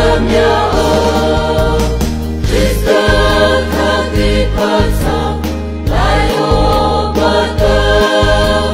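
Mixed choir of men's and women's voices singing a Mara-language gospel song over instrumental backing, with steady bass notes that change about once a second.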